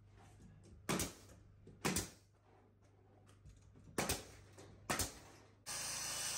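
Pneumatic nail gun firing four times, about one, two, four and five seconds in, sharp cracks as nails are driven through wooden floorboards into the subfloor. Near the end a steady rushing noise takes over.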